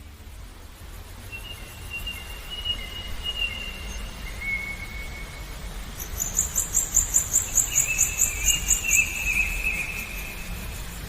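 Birds singing with thin, drawn-out whistled notes, and a fast, high pulsed trill of about five pulses a second in the middle, over a steady low rush of running water.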